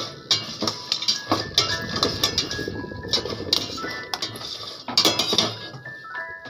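Metal spoon stirring popcorn in a stainless steel pot, scraping and clinking against the pot's sides and bottom in quick, irregular clicks.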